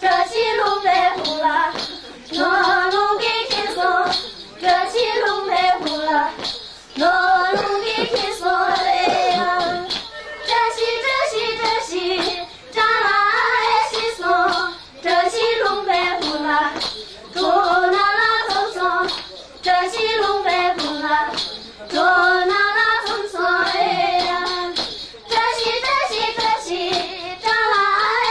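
Women singing a Tibetan folk song in high voices, phrase after phrase of a second or two with sliding pitch, over a steady beat of sharp taps.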